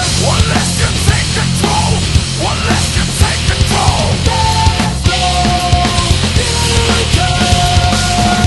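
Loud heavy rock music with held notes, sliding pitches and a dense, driving beat.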